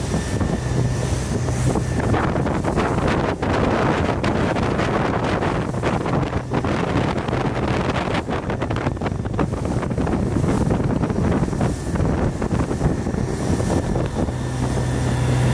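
Wind buffeting the microphone and water rushing past a RIB running at speed under its OXE 150 hp diesel outboard, a 2-litre four-cylinder GM-based engine. A steady low hum shows under the noise near the start and comes back near the end.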